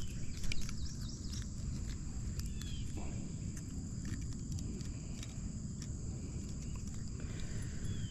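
Outdoor ambience on the water: a steady high insect chirring, with a few light clicks near the start and a couple of short chirps.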